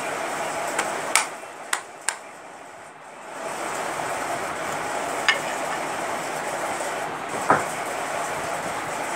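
A handful of sharp knocks and clicks as metal ceiling-fan parts are handled and set down, over a steady rushing background noise that drops away briefly about two seconds in.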